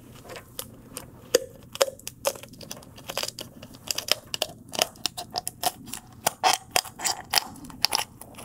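Poultry shears cutting along the backbone of a raw whole chicken, snipping through skin and rib bones: an irregular run of sharp crunching snaps, several a second.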